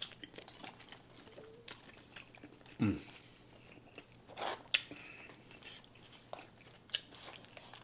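A person chewing a mouthful of a McDonald's Double Quarter Pounder with Cheese Deluxe close to the microphone: soft wet mouth clicks and smacks, with a few louder ones.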